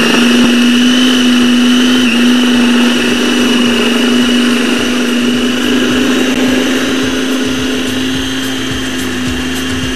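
Electric food processor running steadily, its motor giving a constant hum with a high whine above it as the blade grinds minced meat and onion into a fine paste.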